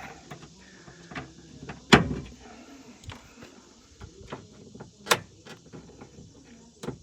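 Plastic door-panel retaining clips of a Toyota Tundra being pried out with a trim clip-popper tool: several sharp clicks and snaps, the loudest about two seconds in.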